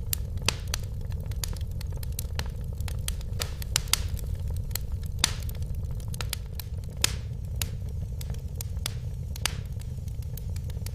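Wood fire in a fireplace crackling: frequent sharp pops and snaps, a few louder than the rest, over a steady low rumble.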